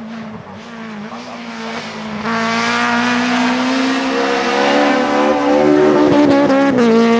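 BMW E30 race car's engine at full throttle as the car comes up the hill and passes close by, getting louder about two seconds in. Its pitch drops sharply near the end as the car goes by.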